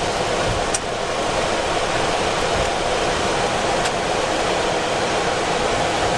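Steady cockpit noise of a Boeing 737-400 with its CFM56 engines at idle and the air conditioning running while the jet lines up on the runway. A faint click comes about a second in.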